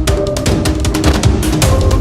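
Tense action soundtrack music with a fast, driving drum beat and sustained low tones.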